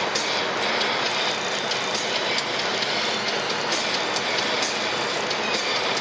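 Inside the cabin of a Volvo P1800 on the move: steady wind and road noise with frequent small clicks and rattles.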